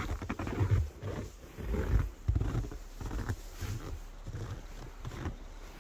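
Wind gusting against the microphone, a low, uneven rumble that swells and drops every half second or so.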